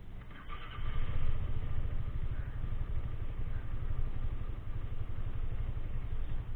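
Vespa scooter engine running with a steady low note that comes up about a second in.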